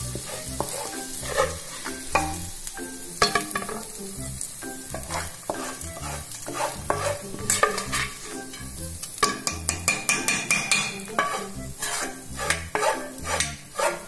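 Steel spoon scraping and knocking against a frying pan, repeatedly, as fried ginger-garlic tempering in oil is scraped out of it into a pressure cooker of curry.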